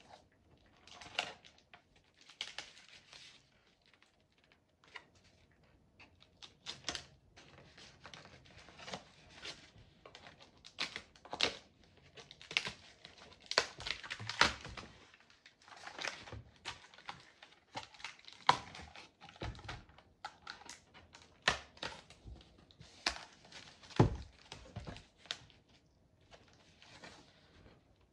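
Cardboard packaging being cut and pulled open: a blade scraping through packing tape and cardboard, with irregular rustling and tapping of the cardboard and two dull knocks about two thirds of the way through.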